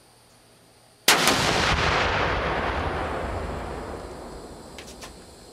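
A .270 rifle shot setting off two pounds of Southern Thunder tannerite packed in a watermelon. It is heard as one sudden, very loud blast about a second in, then a long rumble that fades away over about four seconds.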